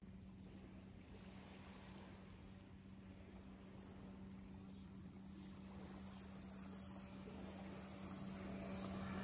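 Faint outdoor ambience of insects chirring, high and steady, growing slightly louder toward the end, over a low steady hum.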